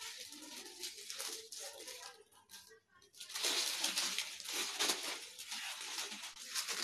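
A thin polythene sheet rustling and crinkling loudly as hands handle it, starting about three seconds in.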